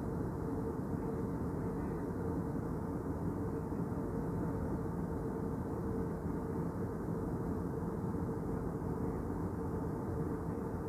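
Jet airliner cabin noise in cruise: steady engine and airflow noise, deep and even, with a steady humming tone running through it, heard from inside the cabin.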